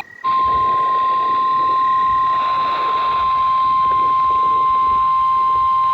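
NOAA Weather Radio 1050 Hz alert tone: a single loud, steady tone that starts a moment in and holds unbroken over faint radio static. It is the attention signal of an Emergency Alert System broadcast, here ahead of a severe thunderstorm watch.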